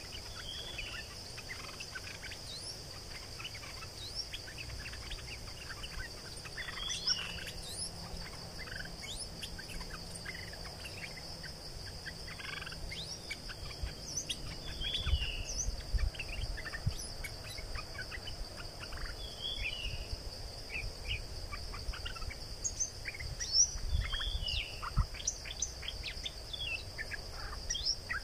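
Stripe-throated bulbuls calling: repeated short, bright chirping phrases over a steady high insect drone. A few low thumps come in the second half.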